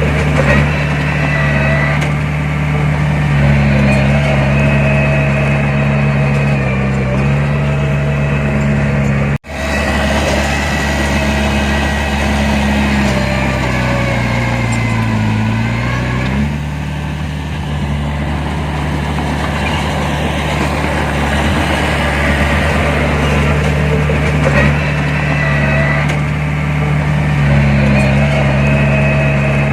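Heavy diesel engine of earthmoving machinery running steadily. Its note sags briefly in the middle and then recovers, and the sound breaks off for an instant about nine seconds in.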